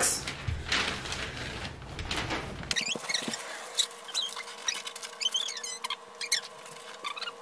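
Wrapping paper rustling and crinkling as it is folded around the ends of a large gift box. After about three seconds the sound turns fainter: small high squeaks and crinkles over a steady hum.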